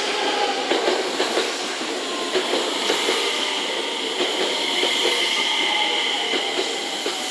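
JR West 227 series electric train rolling slowly into the station close by, its wheels clicking over the rail joints, with a steady high-pitched whine over the running noise.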